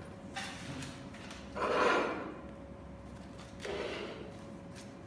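Handling noise on a wooden tabletop: a plastic camera housing and a paper card slid and set down, giving two short rubbing scrapes, the louder about two seconds in and a softer one near four seconds, with a few light clicks.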